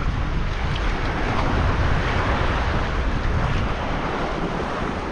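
Wind rumbling on the microphone over the steady wash of shallow sea water.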